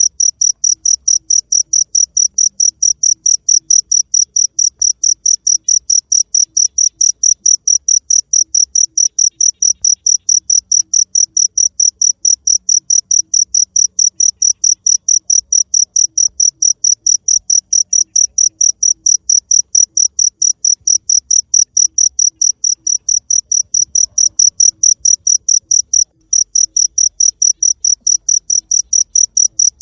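Cricket chirping in a fast, even, high-pitched pulse train, several chirps a second, with one brief break about 26 seconds in.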